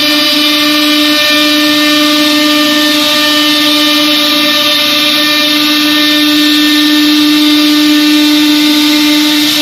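Air-cooled spindle of a CNC router running at speed: a steady, high-pitched machine whine over a continuous hiss.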